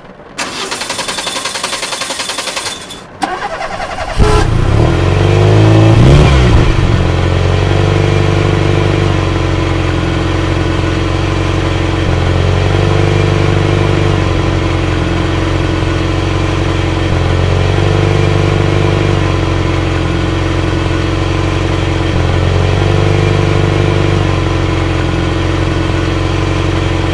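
A car engine is cranked by its starter for about four seconds, with a short break about three seconds in. It catches, revs once briefly, then settles into a steady idle that swells slightly every few seconds. Rain hisses steadily behind it.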